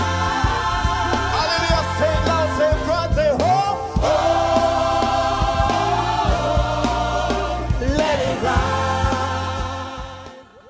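Gospel choir music: voices singing together over a steady bass, fading out near the end.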